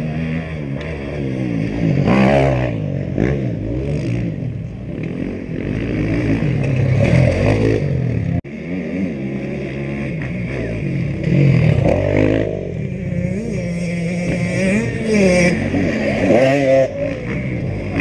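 Off-road racing motorcycle engines revving hard, the engine note rising and falling again and again through gear changes. A brief sudden dropout comes about eight seconds in.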